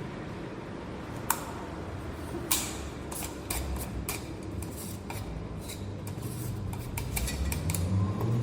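Light clicks and clinks of small hard objects being handled, with sharper knocks about a second and two and a half seconds in. The clicks grow busier and more irregular through the second half.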